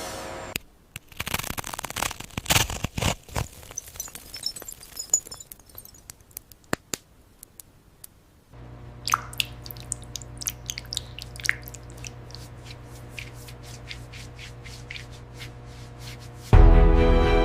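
Irregular sharp clicks and crackles, then a steady machine-like hum with a run of ticks, about two or three a second. Music comes in near the end.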